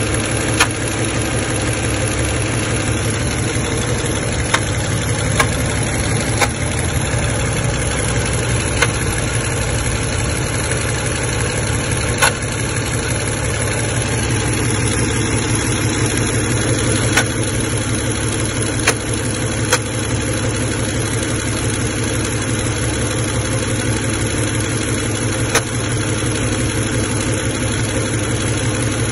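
Car engine idling steadily, with about ten sharp clicks standing out at irregular intervals: an unidentified engine noise whose source is not yet found.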